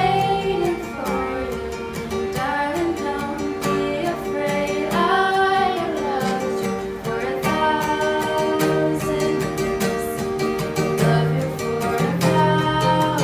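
A female voice singing held notes that slide in pitch, over a plucked acoustic guitar accompaniment.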